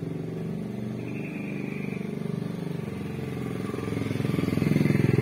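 Domestic cat purring steadily as its head is stroked, the purr swelling louder near the end.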